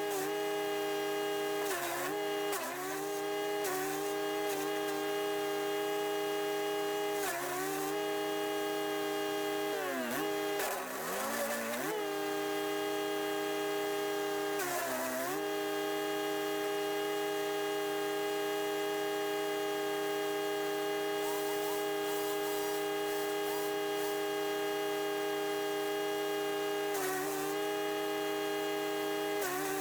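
Wood chipper's 420cc four-stroke engine running steadily at speed. Its pitch sags briefly and recovers several times, each sag with a short crunching burst as a branch is pulled in and chipped; the longest comes about ten to twelve seconds in.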